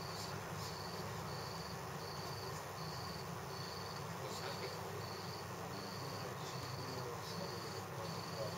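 A cricket chirping steadily, with short even chirps about every two-thirds of a second, over faint room hiss.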